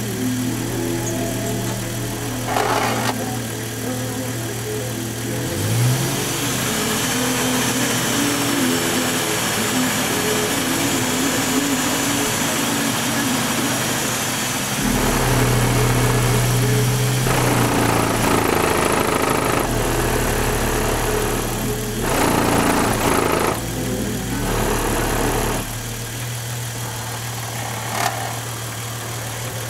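Car-audio subwoofer in a makeshift wooden box, playing a bass-heavy song loud inside a Jeep and heard from outside the vehicle. Deep bass notes are held, with a quick upward bass slide about six seconds in and heavier low bass from about halfway through.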